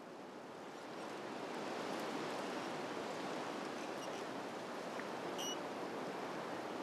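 A steady rushing noise with no pitch, fading up over the first two seconds and then holding even, with one short high chirp about five and a half seconds in.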